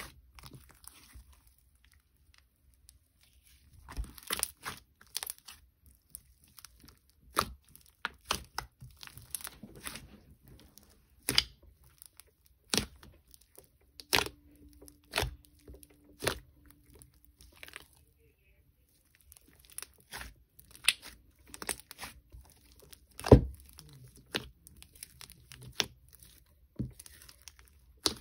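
Elmer's glue slime being squished and stretched by hand, giving irregular sharp pops and crackles.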